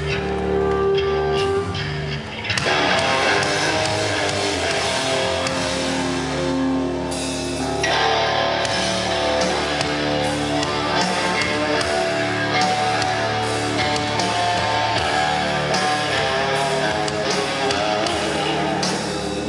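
Live rock band playing: electric guitar with drums, the full band coming in hard about two and a half seconds in.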